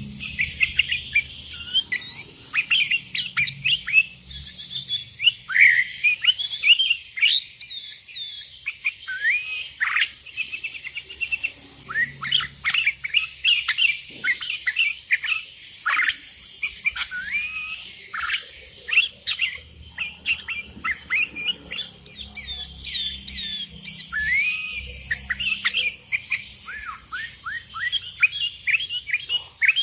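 Sooty-headed bulbul (kutilang) singing a dense run of quick, short chirping and whistled notes without pause. A faint steady high whine runs beneath the song and fades out a little past halfway.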